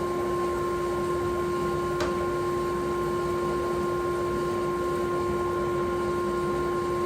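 A steady, even hum holding two fixed tones, with one sharp click about two seconds in.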